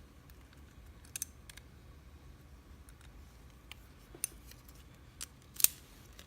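A Zeiss Ikon lock and its key being handled, with a handful of short, sharp metallic clicks and taps as the key is tried in the lock. The loudest click comes near the end.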